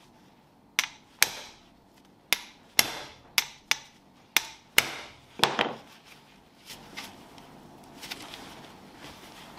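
Hammer blows on a Phillips screw in a Mazda RX-7 FD3S limited-slip differential case, about nine sharp strikes in five seconds followed by a few light taps, to break the screw loose.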